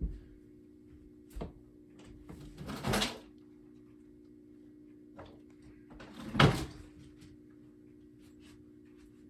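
Knocks and bumps of a door being opened and shut: a short scrape about three seconds in, then a sharp bang past the middle, the loudest. A steady low hum runs underneath.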